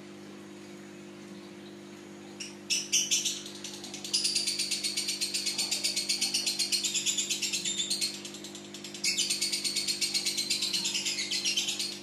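Fischer's lovebird giving a long, very rapid chattering trill (the 'ngekek' that lovebird keepers prize), opening with a few short chirps about two and a half seconds in, breaking off for a second near eight seconds, then resuming.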